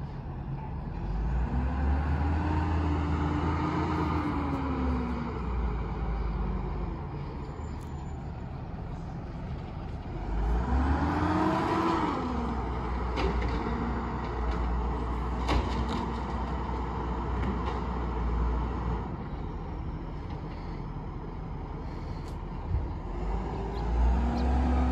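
A recycling truck's engine revs up and falls back twice, about two seconds in and again about ten seconds in, then rises again near the end, over a steady low rumble. A few sharp clanks come in the middle.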